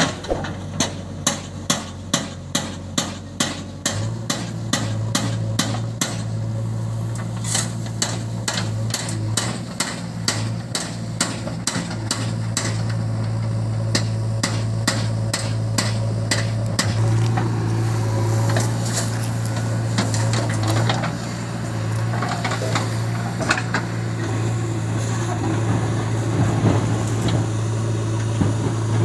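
Diesel engines of a JCB 3DX backhoe loader and a tractor running as the trolley is loaded, a steady low drone from a few seconds in. For about the first half a sharp regular clicking of about three a second rides over it, then grows irregular and fades.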